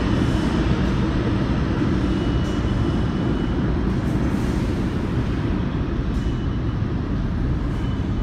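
Lexington Avenue local subway train running on the station track: a loud, steady rumble of wheels and motors, with a faint high squeal a few times.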